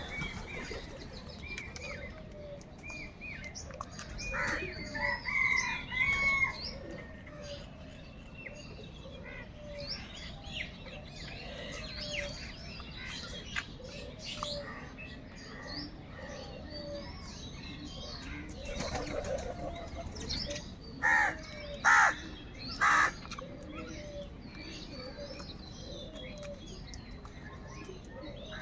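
Crows calling among a steady chatter of smaller birds chirping. The loudest sounds are a cluster of calls about five seconds in and three loud caws about a second apart some twenty seconds in.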